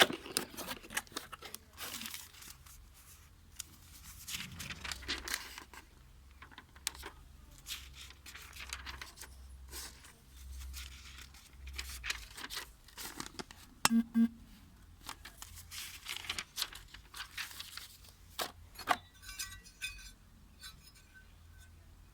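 Packaging being handled and opened: irregular rustling, crinkling and tearing of cardboard and plastic wrap, with scattered clicks and one sharp click about fourteen seconds in.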